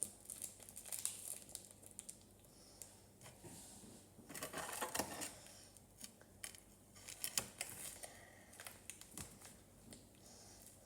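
Table knife cutting through a block of cheese: faint, scattered clicks of the blade on the board and short scraping strokes, with a longer scraping stretch about four seconds in.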